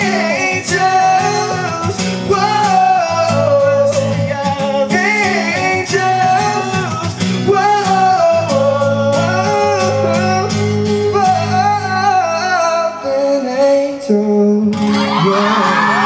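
Live acoustic pop performance: male vocals over a strummed acoustic guitar. About fifteen seconds in the song ends and the audience breaks into cheering.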